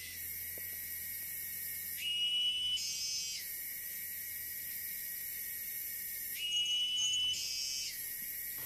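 Forest insects droning in a steady high-pitched buzz. A louder, higher call rises out of it about two seconds in and again near seven seconds, each lasting about a second and a half.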